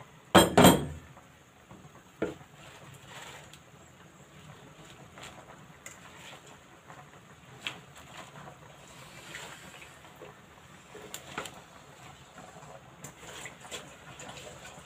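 Two loud clanks of cookware about half a second in, as the glass lid comes off the pan, then a pan of mussels simmering softly in broth with scattered light clicks and rustles as handfuls of leafy greens are dropped in.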